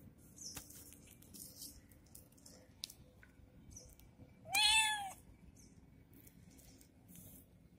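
A kitten gives one high-pitched meow about halfway through, rising then falling in pitch. Faint rustling and light ticks lie between.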